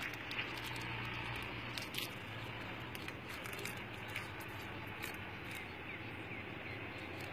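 Outdoor ambience: a steady hiss with scattered faint clicks, a low hum that fades out about two seconds in, and a few brief high chirps about five seconds in.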